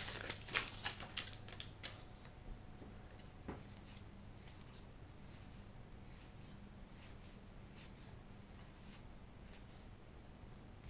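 Trading cards being handled: soft clicks and rustles in the first couple of seconds as the cards come out of the foil booster-pack wrapper, then only faint occasional ticks as the cards are slid from hand to hand. Quiet overall.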